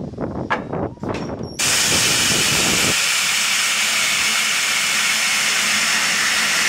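A few knocks and clanks, then about one and a half seconds in a sudden loud, steady hiss of steam blowing out low beside a steam locomotive's driving wheels, as from its open cylinder drain cocks.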